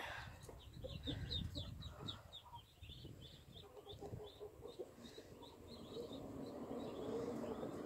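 Muscovy ducklings peeping, a quick run of short high peeps, about three or four a second, over a low rumble.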